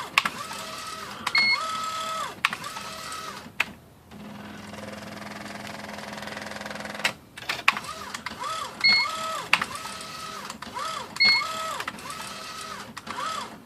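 IBM Wheelwriter 10 carrier motor driving the print carrier back and forth in quick moves. Each move is a short whine that rises and falls in pitch, with clicks, two or three a second, and there is a steady low hum during a pause in the middle. The carrier now runs freely, no longer binding, after its rails were cleaned and oiled and the motor was refitted.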